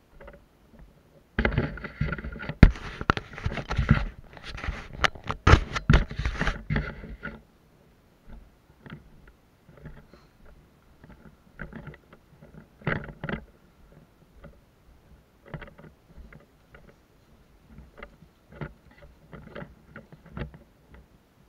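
Brush and stems rustling and scraping loudly for about six seconds as someone pushes through dense undergrowth. Quieter scattered rustles and footsteps follow on a leaf-strewn path.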